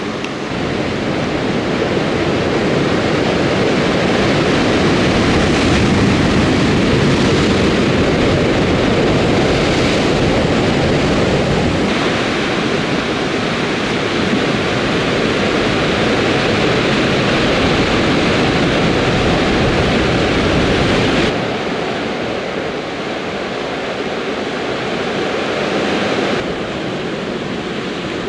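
Sea surf breaking and washing over volcanic shore rocks, a steady rushing noise that changes abruptly in tone and loudness a few times, dropping somewhat about three-quarters of the way through.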